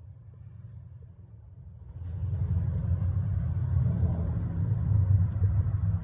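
Low rumbling noise, getting much louder about two seconds in and holding there.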